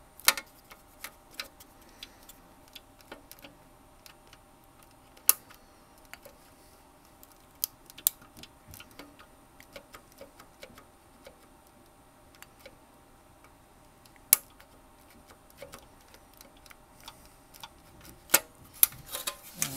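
Irregular sharp clicks and knocks of a circuit board being worked loose in an LCD monitor's sheet-metal frame, where it is stuck. A few loud knocks stand out among many softer ticks, with a cluster of clicks near the end.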